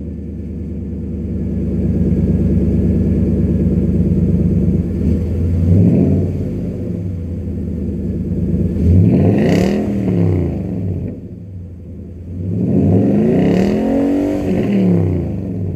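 2012 Nissan Titan's 5.6-litre V8 through an MBRP cat-back exhaust, idling steadily, then revved: a short blip about six seconds in, and two fuller revs that climb and fall back, near ten seconds and near fourteen seconds.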